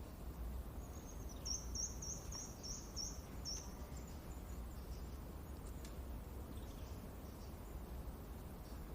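A songbird singing a quick run of about eight high, repeated, down-slurred notes about a second in, with a few fainter chirps later, over a steady low wind rumble.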